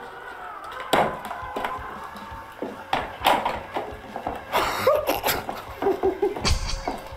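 Sharp clicks and knocks of a utensil working strands of melted cheese at a metal cheese fountain, over a steady faint hum, with short vocal exclamations in the middle and near the end.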